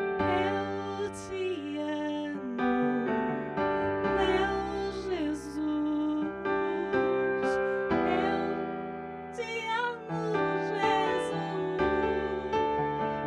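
A woman singing a Christian worship song into a microphone over piano accompaniment, her held notes wavering with vibrato.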